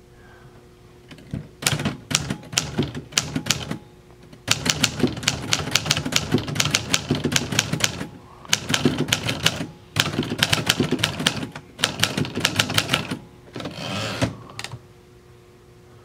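Keystrokes of a 1957 Remington Quiet Riter manual portable typewriter: rapid clacking of typebars striking the platen in several runs, with short pauses between words. Near the end comes a longer, smoother mechanical sound as the carriage is returned.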